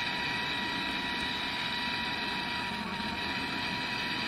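Propane torch flame hissing steadily while it heats an aluminium part for brazing with an aluminium brazing rod.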